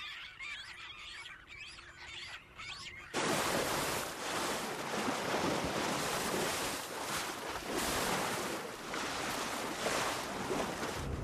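Seabirds calling faintly for about three seconds, then an abrupt cut to loud, steady rushing of sea surf and wind.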